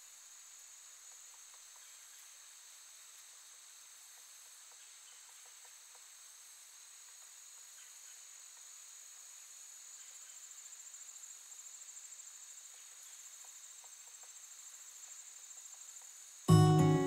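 Faint, steady high-pitched chorus of insects, with a faster pulsing trill joining in about ten seconds in. Strummed acoustic-guitar music cuts in suddenly just before the end.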